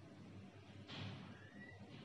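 Near silence: faint room tone with a slight hiss.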